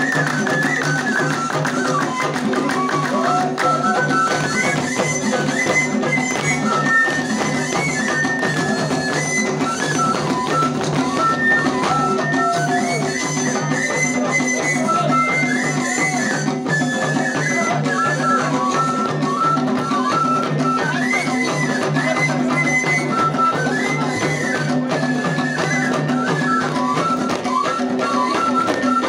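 Amazigh folk music with drums and percussion under a high melody line that steps between held notes, over a steady low drone.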